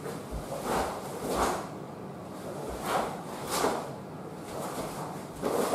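Karate gi sleeves and jacket snapping with a series of quick hand techniques, about five short swishes, with soft thuds of bare feet stepping on a wooden floor.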